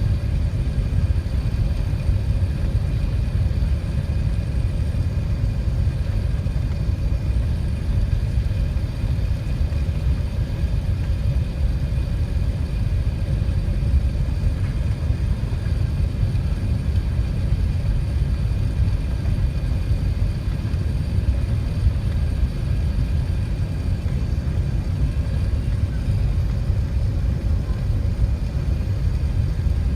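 Steady low rumble of airliner cabin noise aboard an Airbus A380, with a few faint steady hum tones above it.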